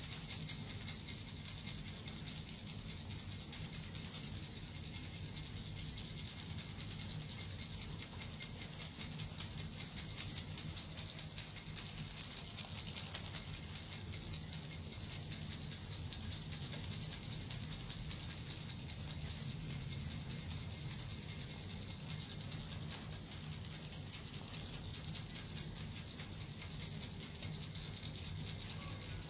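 Suzu bells shaken continuously in a steady, dense jingle with no pauses, used for a sound-healing session.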